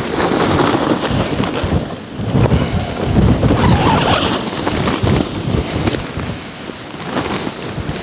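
Strong gusting wind buffeting the microphone, swelling and easing, loudest about three to four seconds in.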